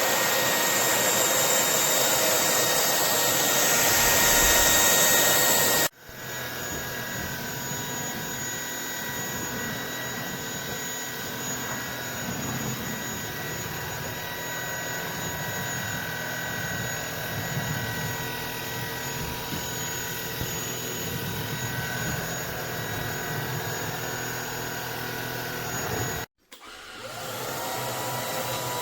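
Lubluelu cordless stick vacuum's brushless motor running with a steady whine and airflow rush. About six seconds in it drops abruptly to a quieter level. Near the end it stops for a moment and spins back up with a rising whine.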